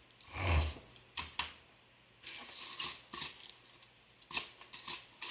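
Handling noises from working the hovercraft's tarp skirt: a loud rustle about half a second in, then scattered sharp clicks and short rustles.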